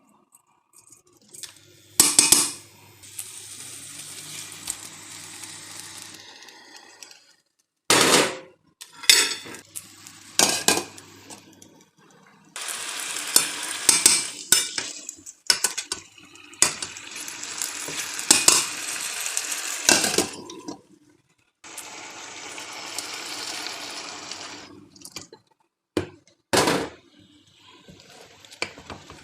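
Metal spoon clanking and scraping against a cooking pot as seasonings are stirred into the chicken, among stretches of a steady hiss that start and stop abruptly.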